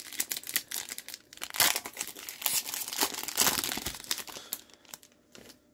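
Plastic foil trading-card pack wrapper crinkling and crumpling in the hands, dense crackling that dies down about four and a half seconds in.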